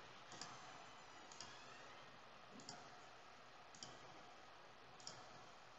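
Faint computer mouse clicks, about five of them spaced roughly a second apart.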